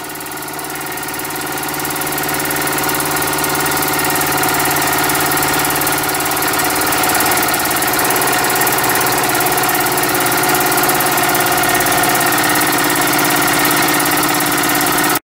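Mamod-based horizontally opposed live-steam model engine running fast and steady, a continuous mechanical hum with steam hiss. It grows a little louder over the first few seconds and cuts off suddenly near the end.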